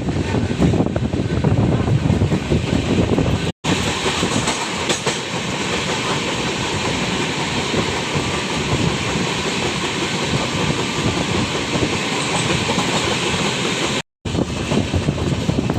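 An Indian Railways passenger train running along the track, its wheels and carriages making a steady rumbling rattle with rushing air. The sound cuts out completely for a split second twice, once about three and a half seconds in and again about a second and a half before the end.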